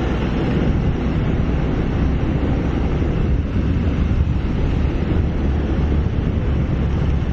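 Wind buffeting the microphone of a riding motorcycle, with the motorcycle's engine and road noise underneath as a steady low rumble.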